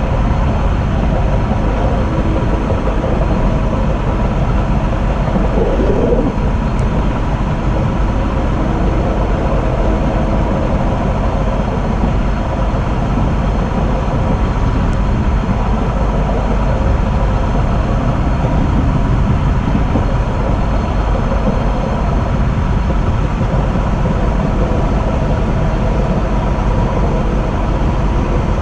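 Steady rumbling running noise of a train moving along the track, heard from the front of the train, with a faint steady high tone.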